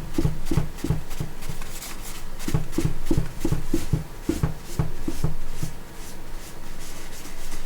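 Cloth scrubbing back and forth over the glass of a resin 3D printer's LCD screen, about three strokes a second with a short pause partway, wiping off spilled resin with denatured alcohol.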